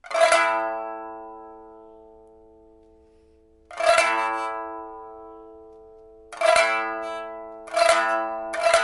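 Rosewood pipa, just refitted with a new soundboard and frets and strung with a steel first string and copper strings, being test-played: four loud strummed chords, each ringing out and slowly dying away, coming closer together. Rapid repeated strumming starts at the very end.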